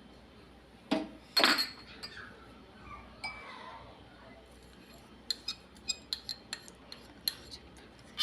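A spoon clinks twice against a saucepan about a second in as coffee powder is added to the dissolved sugar water, then taps lightly against the pan in a quick run of small clicks, about four a second, over the last few seconds.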